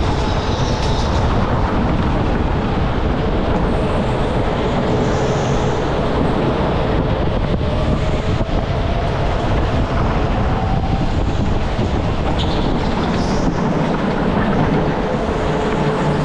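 Go-kart running at speed, heard from on board: a steady loud rumble of the kart's drive and tyres on the track, with a faint steady whine under it.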